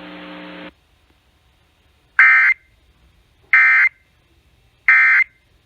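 Emergency Alert System end-of-message data tones: three short bursts of SAME digital screech, about a second and a half apart, marking the end of the alert. Before them, a steady hum and hiss cuts off just under a second in.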